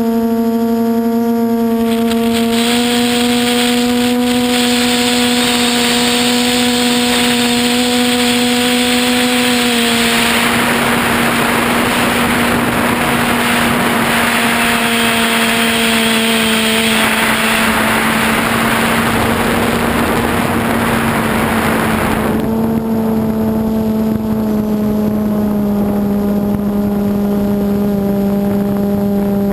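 QAV400 quadcopter's four brushless motors and propellers running in flight, a steady whining hum whose pitch shifts slightly a few times as the throttle changes. For about twelve seconds in the middle, a loud rushing noise all but covers the hum.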